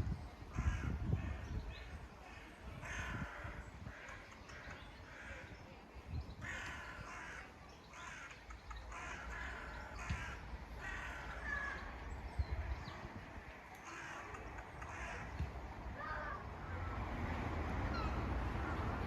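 Crows cawing over and over in quick series of short, harsh calls, thinning out near the end, over a low rumble that grows louder near the end.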